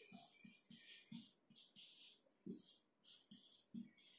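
Faint marker strokes on a whiteboard: short, irregular scratches and taps, a few a second, as a word is written out by hand.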